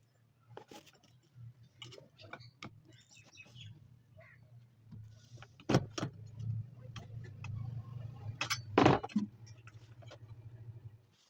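Scattered clicks and knocks of small parts and tools being handled, over a steady low electrical hum. The loudest knocks come about six seconds in and near nine seconds in.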